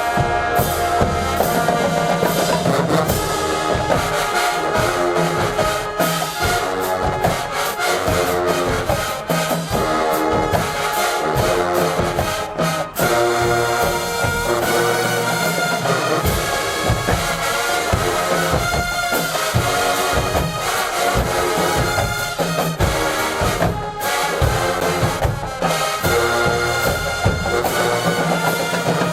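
HBCU marching band playing a brass-heavy tune, trombones and trumpets over drums.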